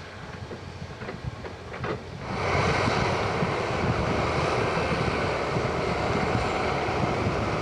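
Doosan DX180 LC tracked excavator's diesel engine and hydraulics running, with scattered clicks at first; about two seconds in it gets suddenly louder and holds steady, as the engine goes up in revs under hydraulic load.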